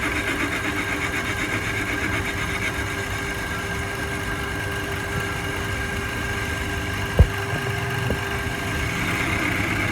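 A workshop machine running steadily with a constant hum, with one sharp knock about seven seconds in and a lighter one a second later.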